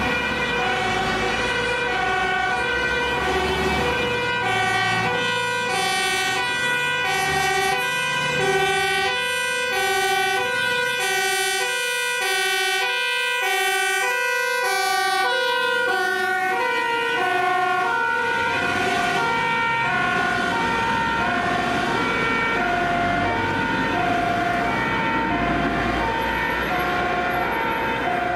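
Fire service two-tone siren on a Mercedes-Benz Sprinter dive van, alternating between a high and a low note as the van approaches, passes about halfway through and drives away. Engine and traffic rumble lie under it early on.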